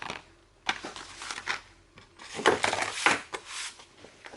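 Boxed spark plugs and packaging being handled: a series of light knocks and clinks with rustling as the new plugs are lifted out of the kit box and set down, busiest past the middle.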